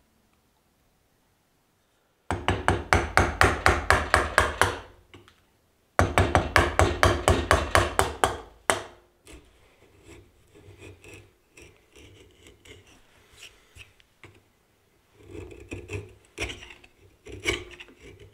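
Two runs of fast, even back-and-forth strokes on wood, about five a second, each a few seconds long. They are followed by a chisel carving a recess into a plywood sheath inlay: short, quieter scraping cuts, with a few louder cuts near the end.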